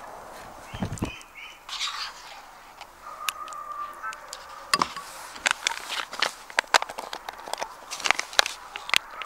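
A run of sharp clicks and knocks, growing busier from about halfway through, with a few short bird calls in the background early on.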